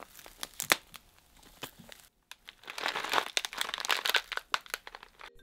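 Crab legs being snapped and cracked in gloved hands, a few sharp separate cracks, recorded as Foley for a monster's footsteps. After a short break, a bunch of celery stalks is twisted, giving a dense run of crunching and crackling, Foley for a monster's ear opening.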